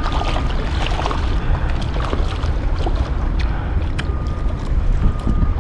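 Strong wind buffeting the microphone over splashing water, as a small flounder flaps in a landing net at the surface. A few sharp clicks come through, about two and four seconds in.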